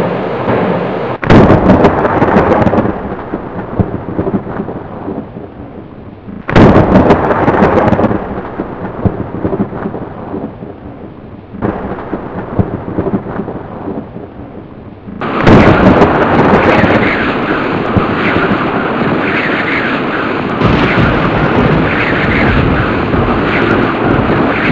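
Thunder: three sudden sharp cracks, about a second in, about six seconds in and about fifteen seconds in. The first two roll off into fading rumbles. The last goes on as a long, steady rumble.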